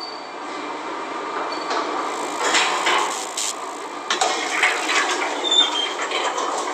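Recorded apartment-building noises: scattered knocks, clicks and scraping over a steady hiss, with a cluster of louder knocks in the middle.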